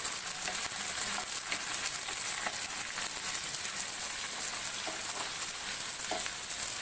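Vegetables (shallots, carrots, drumsticks and peas) sizzling as they sauté in hot oil in a non-stick frying pan, stirred with a wooden spatula that gives a few light scrapes and taps against the pan.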